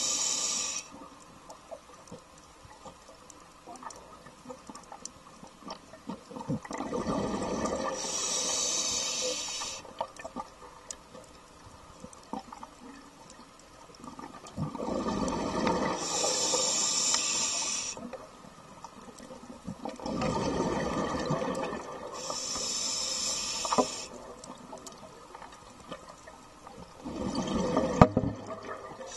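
Scuba diver breathing on an open-circuit regulator, about once every six to seven seconds. Each breath is a hissing draw on the regulator paired with a gush of exhaled bubbles.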